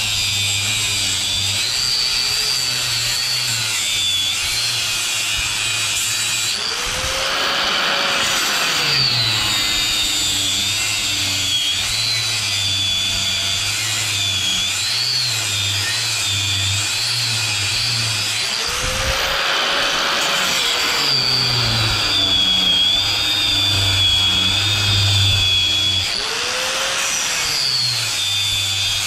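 Angle grinder with a cut-off wheel cutting through the copper windings at the end of an electric motor's stator. Its motor whine wavers in pitch as the wheel is loaded, with harsher stretches of grinding about a quarter of the way in, two-thirds of the way in and near the end.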